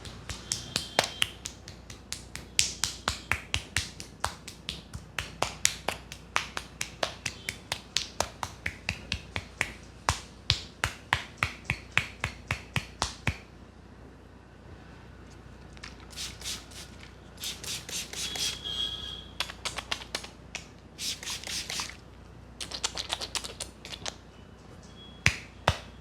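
Rapid, rhythmic hand strikes of a head massage, sharp claps on the head about four a second, stopping about halfway through. Then softer rubbing and scratching of the hair and scalp in short patches, with a couple of sharp claps near the end.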